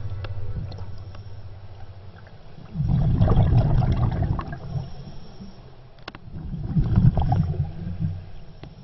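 Underwater bubbling and gurgling of a scuba diver's exhaled breath leaving the regulator, heard twice, in two loud bursts about four seconds apart.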